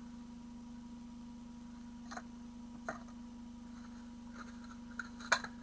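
Steady low electrical hum with a few faint taps and clicks of card being handled, the sharpest one near the end.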